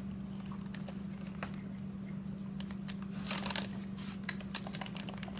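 Clear plastic bag crinkling and crackling as it is handled and opened, starting about three seconds in, over a steady low hum.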